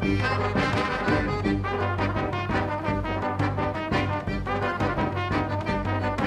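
Upbeat brass-band music with trombone and trumpet over a steady bass line.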